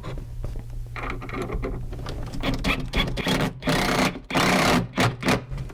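Cordless drill running in repeated stop-start bursts, boring or driving screws into wood. The bursts get louder and harder from about halfway through.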